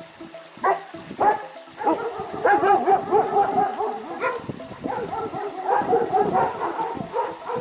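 A dog gives two short yelps, then from about two seconds in a run of wavering whines and yips.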